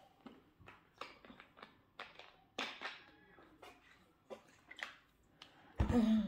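Soft scattered clicks and mouth noises of eating and drinking at a table, a little louder about two and a half seconds in. Near the end comes a short hummed vocal sound.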